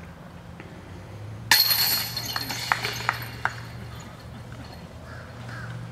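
A disc golf disc hitting the chains of a metal disc golf basket: a sudden loud crash of chains about a second and a half in, then the chains jangle with several sharp clinks over the next two seconds as the disc settles.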